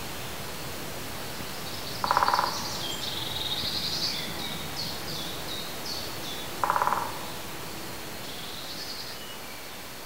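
Woodland ambience: songbirds chirping and trilling over a steady hiss, with a louder, lower, short call from another bird twice, about two seconds in and again some four and a half seconds later.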